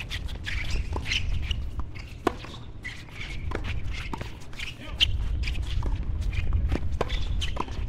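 A tennis doubles rally on a hard court: sharp racket strikes on the ball about every second, with footsteps and shoe scuffs between them, over a steady low rumble.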